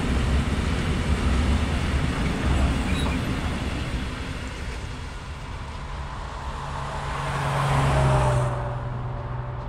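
Freight train of open-top wagons rolling past, its wheels rumbling on the rails, then fading as the train moves away. From about six seconds a road vehicle swells in and passes close by, loudest near eight seconds.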